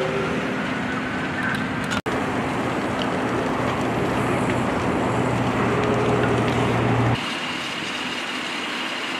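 A running engine hums steadily under a loud, even rushing noise. There is a split-second dropout about two seconds in, and the engine hum stops abruptly a little after seven seconds, leaving a quieter rush with a thin, steady high tone.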